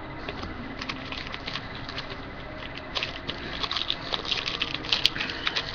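Trading cards and their packaging being handled: a run of light rustles and clicks that grows busier and louder from about three seconds in.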